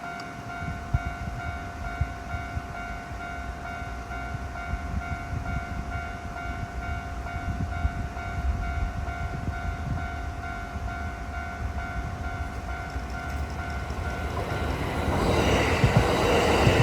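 Level-crossing warning bell ringing in a steady repeating pattern. Near the end, the rising rush of a Kintetsu 8A series electric train arriving over the crossing covers it.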